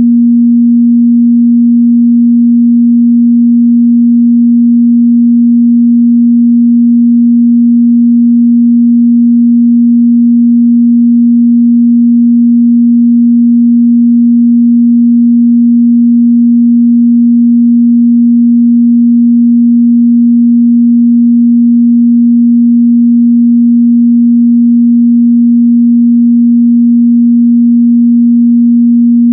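A steady, loud 237 Hz pure sine test tone, one unchanging mid-bass pitch with nothing else in it.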